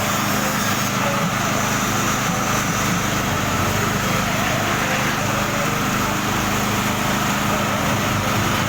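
Rotary dryer machine running with a steady mechanical drone that holds constant throughout.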